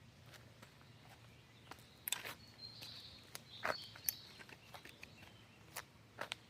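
Faint outdoor ambience: a few short bird chirps in the middle, with scattered light clicks and knocks throughout.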